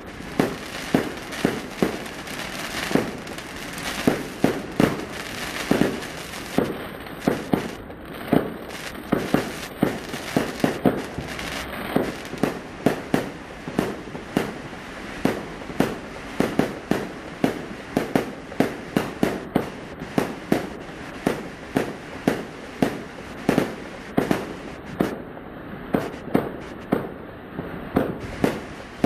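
Consumer aerial fireworks bursting in quick succession, about two sharp bangs a second, over a continuous crackle.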